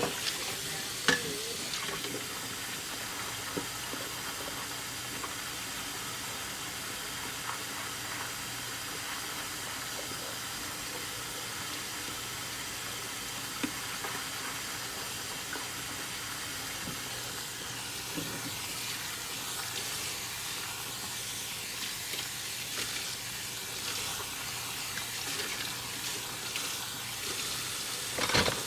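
Kitchen sink tap running in a steady hiss during dishwashing, with a few scattered clinks of dishes.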